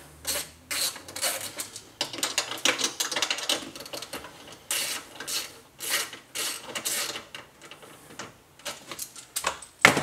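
Socket ratchet clicking in quick runs, with short pauses, as the 10 mm bolts holding a hybrid battery cooling fan are loosened.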